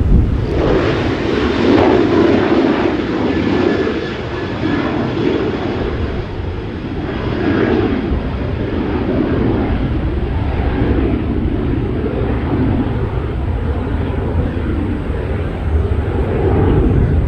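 Military aircraft engines running loud and steady at an airbase, a continuous rushing drone that swells and eases slightly over the seconds.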